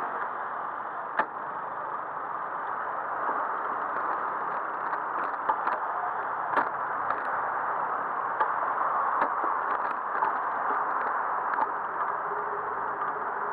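Steady rush of street traffic and road noise heard from a bicycle riding in city traffic, with scattered sharp clicks and rattles, the sharpest about a second in and again about halfway through.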